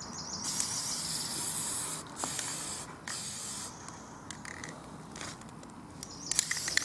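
Aerosol spray paint can spraying in short hissing bursts: a longer one, two quick shorter ones, then another near the end.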